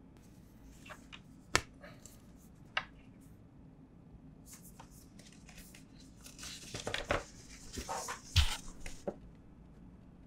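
Smartphone packaging being handled: a couple of sharp clicks, then a stretch of crinkling and tearing with a loud knock near the end.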